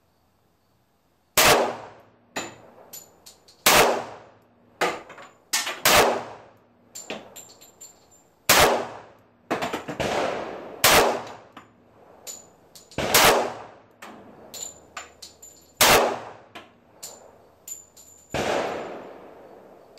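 Colt 1911 .45 ACP pistol firing a magazine of slow, aimed single shots: about eight sharp reports, each two to three seconds after the last, each followed by a short ringing tail. Smaller, fainter cracks and clinks fall between the shots.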